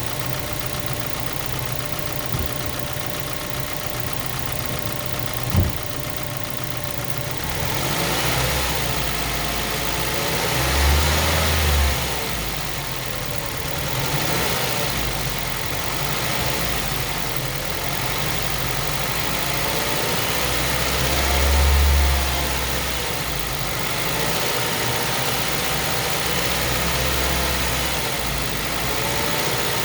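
2005 Mazda 3's four-cylinder engine running, with the mild rod knock that the owner traces to running one to two quarts low on oil, after finding metal shavings in the oil. One sharp click comes about five and a half seconds in. From about eight seconds in the engine gets louder, with two stronger swells near eleven and twenty-two seconds.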